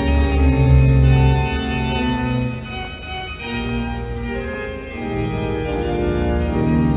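Organ music playing sustained chords that change every second or so, with a full bass in the first couple of seconds.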